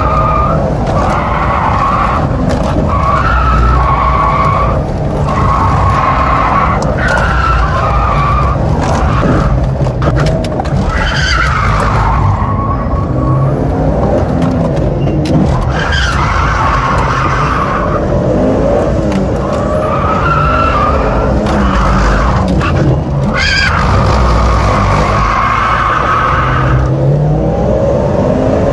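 Mitsubishi Lancer Evo IX's turbocharged four-cylinder engine running hard on and off the throttle, with tyres squealing again and again as the car slides around slalom cones on worn winter tyres.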